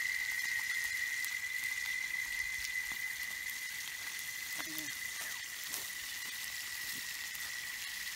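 Fish frying in oil in a frying pan over a wood fire, a steady sizzle, with a steady high-pitched whine held at one pitch throughout.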